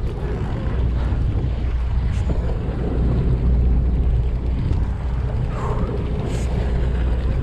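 Boat engine running with a steady low rumble, with wind on the microphone.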